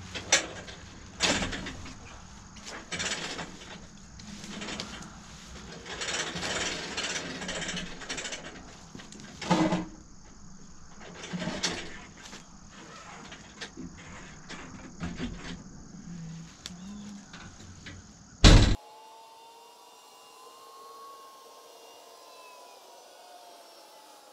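Irregular metal clanks and knocks as a farm fuel trailer's hose, nozzle and toolbox gear are handled, with one loud bang near the end. After it, only a faint steady hum with a slow rising and falling whine.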